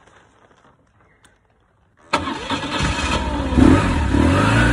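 Motorcycle engine starting with a sudden catch about two seconds in, then idling steadily. Before it, only faint handling noises.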